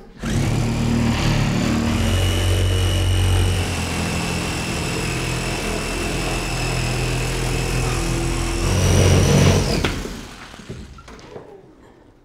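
A small motor runs loudly with a steady high whine and a low hum, starting abruptly and cutting out after about nine and a half seconds.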